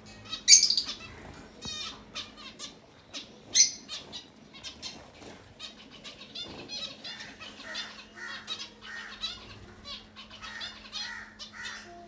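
Zebra finches calling: a busy mix of short chirps with two louder, harsher calls about half a second and three and a half seconds in, then a run of calls roughly twice a second. Wings flutter as birds flit on and off the perch.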